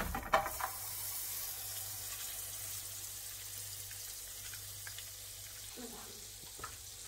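Butter sizzling and foaming as it melts in a hot frying pan, a steady hiss. In the first second a knife knocks and scrapes as the butter goes in.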